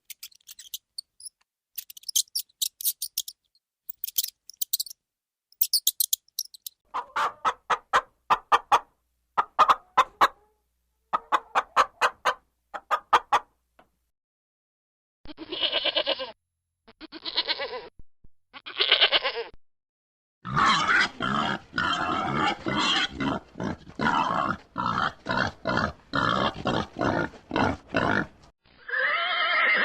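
A series of different animal calls, one after another. High chirping calls come first, then bursts of rapid pulsed calls. About halfway through there are three separate bleats, each about a second long, and then a long stretch of dense, rapid rasping calls.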